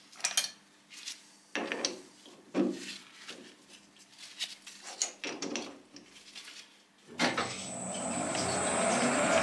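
A series of scattered knocks and clacks while the Colchester 1800 manual lathe stands stopped. About seven seconds in, its spindle starts with a clunk and runs up to speed, the sound rising in pitch and level.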